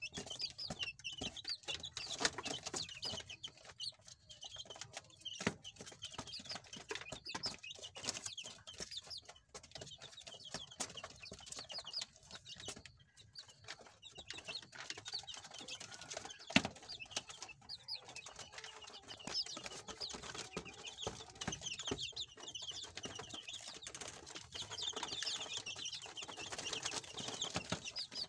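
A brood of seventeen-day-old chicks, frizzle and regular, peeping nonstop: many short, high cheeps overlapping, with scattered light taps and one sharper knock about sixteen seconds in.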